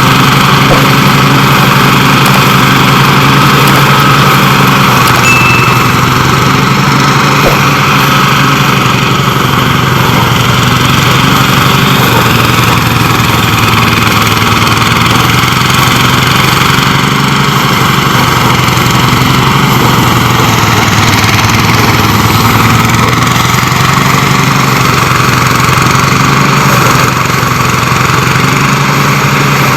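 A small engine running steadily at a constant speed, loud and even throughout.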